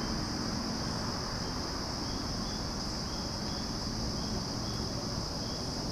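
Insect chorus of crickets trilling in one continuous high note, with faint short chirps repeating about twice a second.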